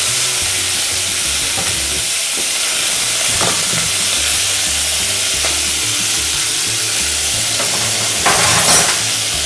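Seasoned cubes of meat searing in hot oil in a pot, a steady sizzle that gets briefly louder near the end. The salt and black pepper on the meat help it brown and caramelise as it sears.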